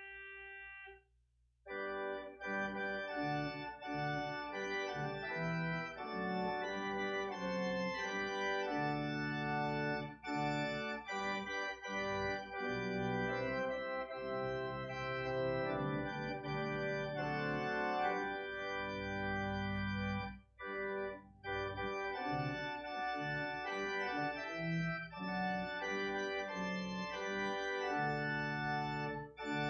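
Organ playing a solo piece in sustained, held chords. A held chord cuts off about a second in, and after a short pause the playing resumes with full chords.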